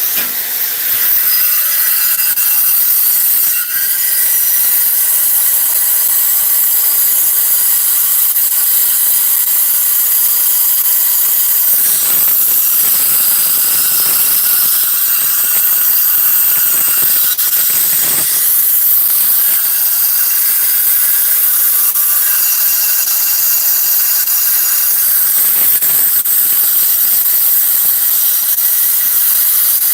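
A 7-inch DeWalt angle grinder cutting under load: a loud, steady, high-pitched grinding hiss that swells briefly a few times as the pressure on the cut changes.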